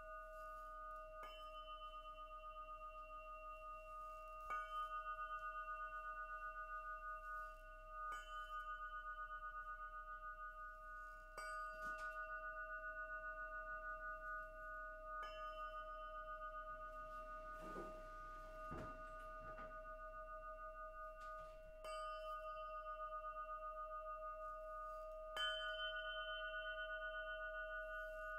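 Quartz crystal singing pyramid struck gently with a small mallet every three to four seconds. Each strike renews a steady ringing tone with several higher overtones and a slow wavering, and there is a brief soft handling rustle about two thirds of the way through.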